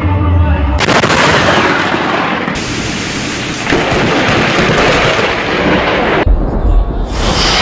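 Loud thunder from nearby lightning, with cracking and rumbling noise. The sound jumps abruptly a few times, as if spliced from several clips.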